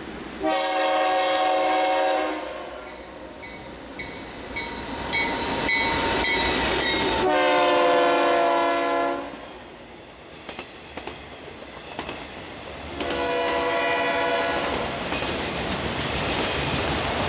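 Freight diesel locomotive's multi-chime air horn sounding three long blasts as the train passes close by. Between and after the blasts come the rumble and clatter of autorack freight cars rolling over the rails.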